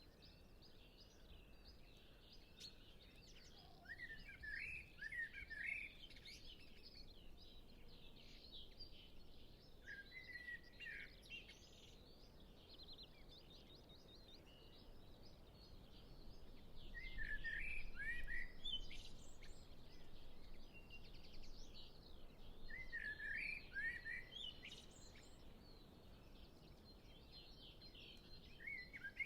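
Common blackbird singing: about five separate warbled phrases a few seconds apart, each trailing into higher twittering notes. Other birds twitter faintly in the background.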